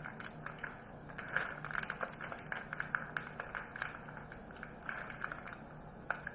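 Irregular plastic clicks and taps as an ink cartridge is worked at in the carriage of an HP DeskJet 2700 series printer, over a low steady hum.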